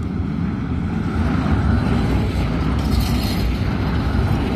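A tram passing close by, its wheels rumbling on the rails as it grows louder over the first second or two and stays loud. There is a brief higher hiss or screech about three seconds in.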